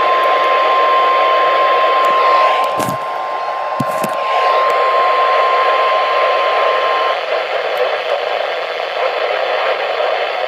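Emergency alert broadcast heard over a radio with heavy static: a single steady alert tone, the weather-radio warning alarm tone, sounds over the hiss and cuts off about seven seconds in, leaving only the static. A couple of brief crackles break through around three and four seconds in.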